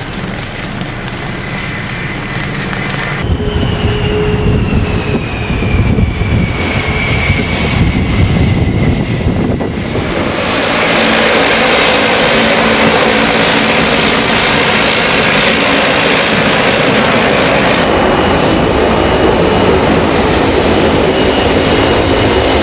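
Airliner engines heard across several cuts. First taxiing jet engines, then a whine sliding down in pitch. From about ten seconds in, the loud running of a Eurowings ATR 72's turboprop engines, and in the last few seconds the jet engines of a BAe 146 with a steady high whine.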